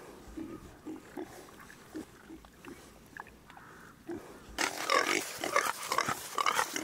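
Pigs grunting softly and irregularly. About four and a half seconds in, the sound jumps to loud, close grunting and snuffling from pigs right at the microphone.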